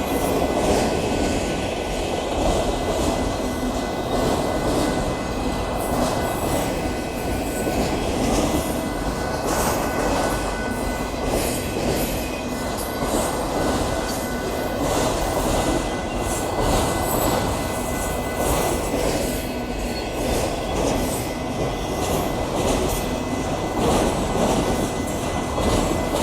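Union Pacific auto train's autorack cars rolling past: a steady rumble and rattle of steel wheels on rail, with a clack of wheels over rail joints about every second and a faint, steady high wheel squeal.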